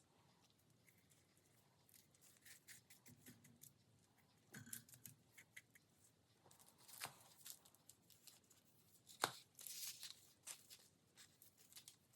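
Faint, irregular rustling, crinkling and scratching from handling gold foil during hands-on craft work, with small clicks and one sharper click about nine seconds in.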